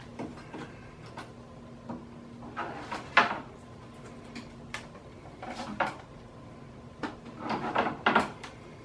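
Cured fiberglass mold being flexed and pulled apart by hand: scattered sharp cracks, creaks and knocks from the laminate. The loudest crack comes about three seconds in, and a cluster of them comes near the end, over a faint steady hum.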